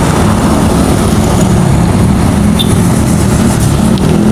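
A motor engine running steadily and close by, a loud low rumble with no breaks.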